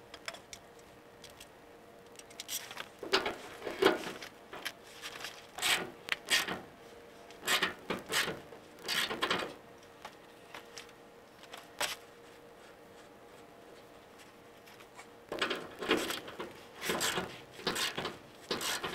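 Irregular scrapes, rubs and clunks of hand-tool work on a pickup's rear leaf-spring hardware, with a quieter stretch in the middle.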